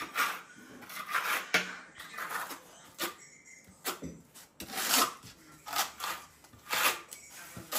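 Steel notched trowel scraping and combing tile mortar across the back of a ceramic floor tile, in a series of short strokes: back-buttering the replacement tile before it is set.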